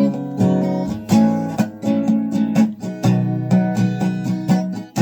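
Acoustic guitar strummed in a steady rhythm with changing chords: an instrumental break between sung lines of a light, country-style song.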